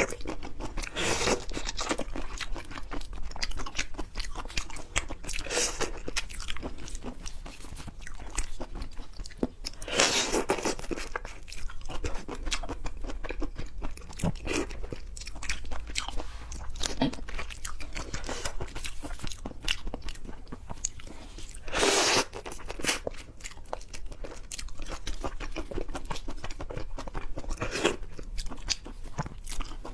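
Close-miked eating sounds of raw marinated (drunken) shrimp: chewing and crunching with many small wet clicks, and louder bursts every several seconds.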